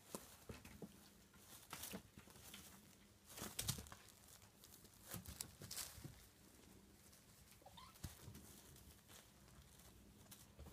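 Kittens play-fighting on a cloth sheet and a woven rug: faint, scattered rustles of fabric and soft scuffles of paws, in irregular bursts. A faint short rising squeak about eight seconds in.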